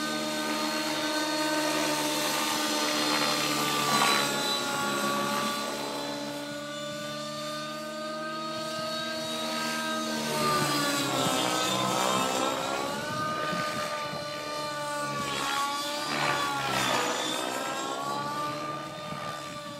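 Radio-controlled model helicopter flying, its motor and rotor giving a steady pitched whine. The pitch dips and climbs back twice in the second half as the helicopter is manoeuvred.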